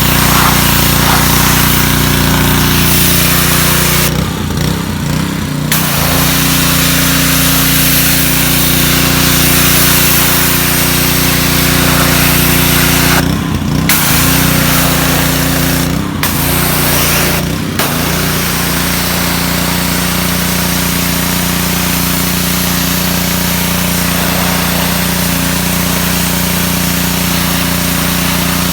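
Gas pressure washer's Honda GCV160 single-cylinder engine running steadily under the hiss of the high-pressure spray. The spray cuts out briefly four times, once for about two seconds, as the trigger is let go, and the engine note shifts each time.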